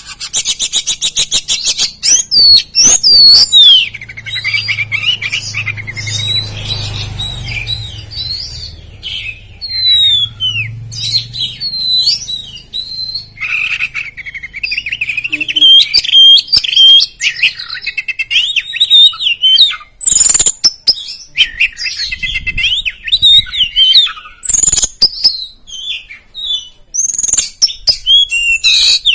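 Oriental magpie-robin (kacer) singing loudly and almost without pause: a varied song of whistled, gliding phrases broken by fast, harsh rattling runs near the start and again near the end.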